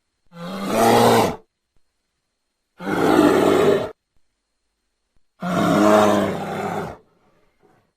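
A bear calling three times. Each call is a pitched, about one to one-and-a-half-second sound, and the last is the longest. Dead silence separates the calls.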